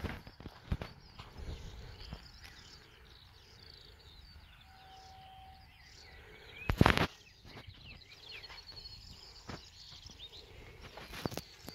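Faint birdsong chirping over light outdoor background noise, with one loud brief rushing thump about seven seconds in.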